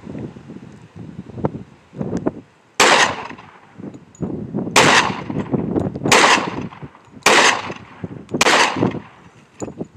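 Five gunshots fired one at a time from a gun, about one to two seconds apart, the first nearly three seconds in.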